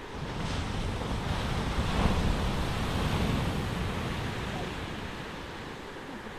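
Beach surf: a wave swells and washes in, rising to a peak about two seconds in and then fading away, with wind rumbling on the microphone.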